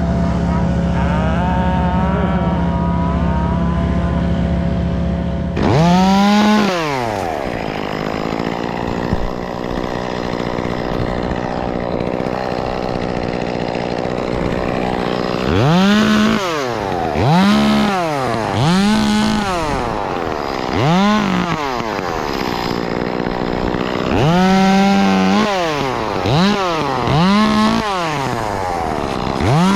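Chainsaw running at idle, then revved up about six seconds in and, from about sixteen seconds on, revved again and again in short bursts, each climbing and falling in pitch.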